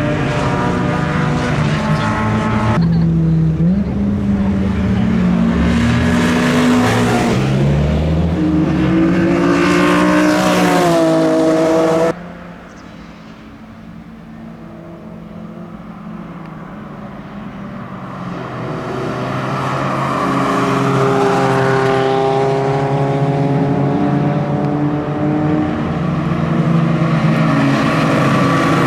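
Tuned BMW E46 M3's S54 straight-six engine driven hard, its induction noise rising and falling through repeated runs up the revs and gear changes. About twelve seconds in the sound drops suddenly much quieter, then builds back up over several seconds to full level.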